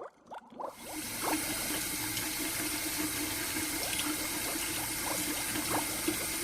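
A steady rush like running water, starting about a second in, with a few brief high squeaks over it.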